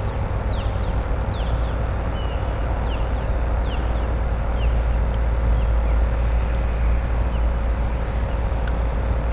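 A steady low rumble with a faint constant hum underneath, while a bird chirps repeatedly with short, high, falling notes about once a second.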